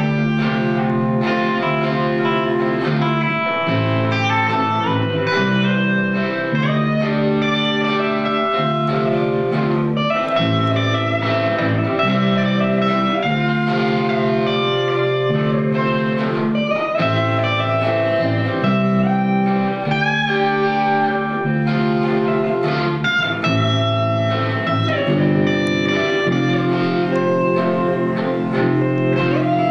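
Live band jamming: an electric guitar plays held notes with some bends over a steady bass guitar line and a drum kit.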